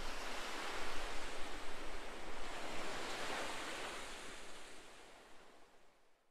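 A steady rushing noise with no pitch, like surf or wind, that swells slightly and then fades away over the last few seconds; no music yet.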